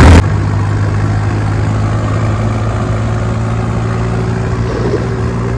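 Tractor engine running steadily at idle, a low even hum.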